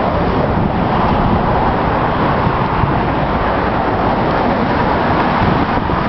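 Strong storm wind blowing steadily and buffeting the microphone.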